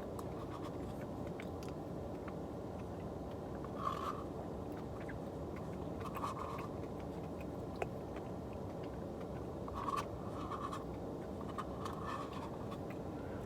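Car's air conditioning blowing steadily with the engine running, with a few short scrapes of a spoon in the Blizzard cup, about four seconds in, six seconds in, and again near ten and twelve seconds.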